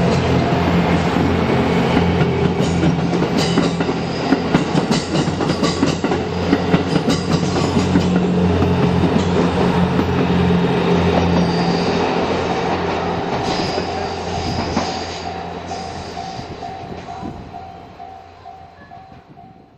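The Twilight Express Mizukaze, a JR West 87 series diesel-electric hybrid train, passing close by: a steady engine hum with wheels clicking over rail joints and points, fading away over the last several seconds. A level-crossing bell rings repeatedly as the train recedes.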